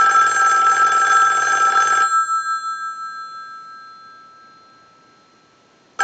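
Western Electric 500 rotary desk telephone's bell ringing on a ring cycle from a test analyzer: one ring lasting about two seconds, then the bell rings on and slowly fades for a few seconds, and the next ring begins right at the end. The bell, which had not been ringing, now rings after repair.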